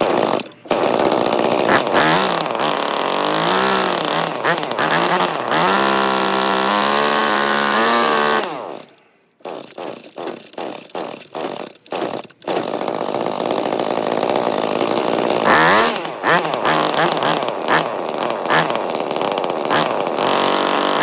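ECHO SRM-225 string trimmer's small two-stroke engine running and revving up and down after a tune-up. About eight seconds in it dies away, sputters in uneven pops for a few seconds, then catches and runs again with another rev near the end.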